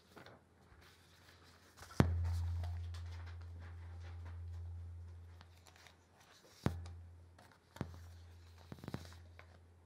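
A low piano note struck about two seconds in and left ringing as a long low tone that slowly fades, struck again near seven seconds, with a few small clicks in between.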